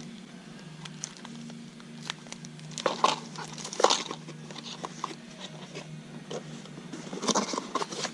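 Chainsaw rebuild parts being handled and set out on a bench: scattered rustles and light clicks, the loudest about three and four seconds in, over a steady low hum.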